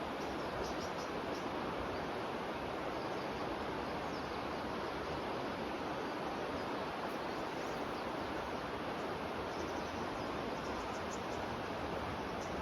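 The Tone River's shallow water rippling and rushing, a steady, even murmur. Faint high chirps come in briefly about a second in and again near the end.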